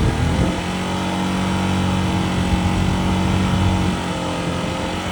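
Yamaha MT-15's single-cylinder engine revved and held at a steady speed, running smoothly without the noise from the cylinder head, which was cured by replacing two parts.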